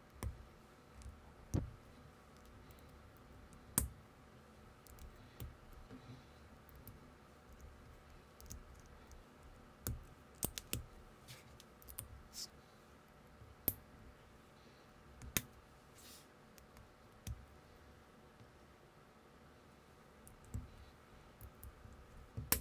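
Small plastic building-brick pieces being handled and pressed together, giving sharp, scattered clicks at irregular intervals.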